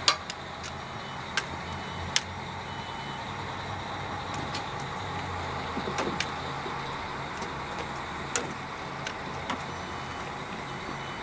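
Diesel railcar engine idling steadily with a low hum, and a few sharp clicks now and then.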